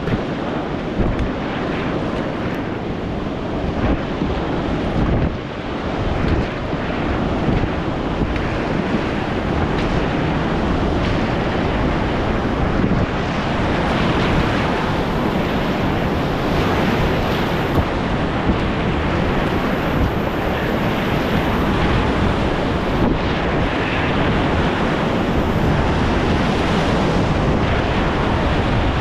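Whitewater rapid rushing loudly around an open canoe, with waves breaking and splashing over the bow. The rushing grows louder and steadier about ten seconds in, as the canoe enters the big waves.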